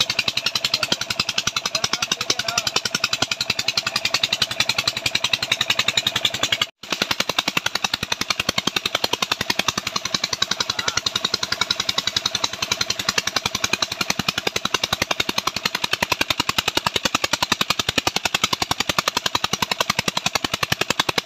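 Engine driving a tubewell pump, running steadily with a rapid, even exhaust beat. It breaks off for an instant about seven seconds in.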